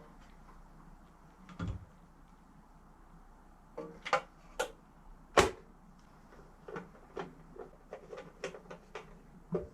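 Irregular knocks and clicks of objects being handled, about a dozen, with a dull thump near the start and a louder knock about halfway through.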